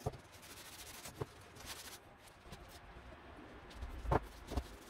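A cloth wiping the metal ring baffle of a cryopump: faint rubbing, with a few light clicks and knocks as the part is handled, the loudest near the end.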